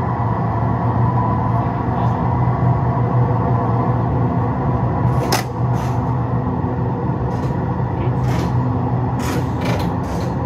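Electric train running sound played through a driving simulator's speakers while cruising at about 100 km/h: a steady low hum with a few sharp clicks from about halfway through.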